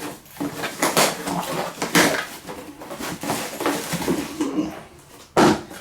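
A new Dremel rotary tool's box being handled and opened: irregular rustling, knocks and clatter of the packaging, with one louder knock near the end.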